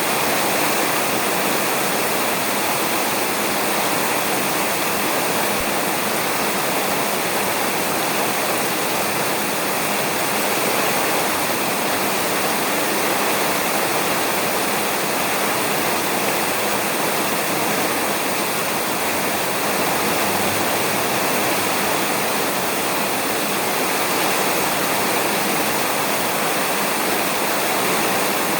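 Rain falling steadily on a roof, an even, unbroken hiss.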